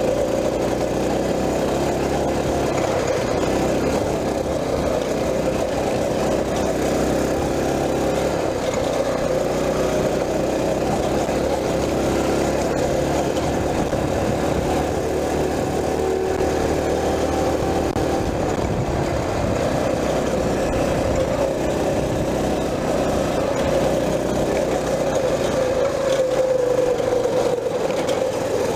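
Mini bike's small engine running steadily while the bike is ridden over a dirt trail, with wind noise over it.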